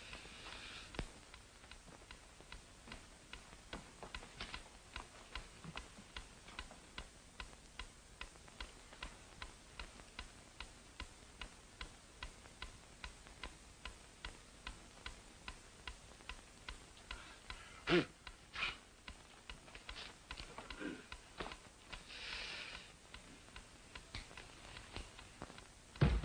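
A clock ticking steadily and faintly. About eighteen seconds in there is a sharp knock with a second just after it, and a brief hiss a few seconds later.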